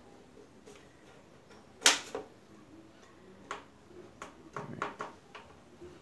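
PVC pipe and fittings knocking and clicking as they are handled: one sharp click about two seconds in, the loudest, then a quick run of lighter taps over the last few seconds.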